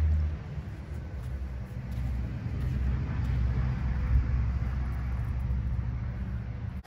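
Wind buffeting the microphone as a low, uneven rumble, loudest in a gust right at the start and then settling to a steadier rumble.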